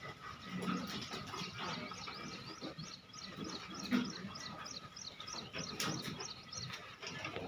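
A small bird chirping in a quick repeated series, about three chirps a second, over rural outdoor background sound with a few brief low sounds.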